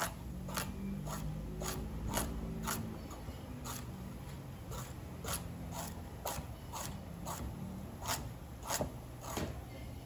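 Kitchen knife slicing raw carrots into rounds on a wooden cutting board: a crisp chop about twice a second as the blade cuts through and knocks onto the wood.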